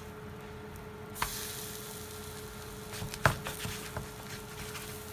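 Veggie burger patties frying in a pan, the sizzle growing louder about a second in, with a few sharp taps of a utensil, the loudest a little past three seconds.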